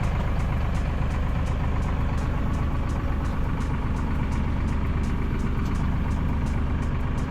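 Farm tractor engine running steadily at an even speed, a low continuous hum with no revving.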